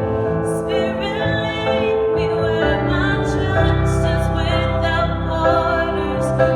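A woman singing a slow song with vibrato, with instrumental accompaniment underneath.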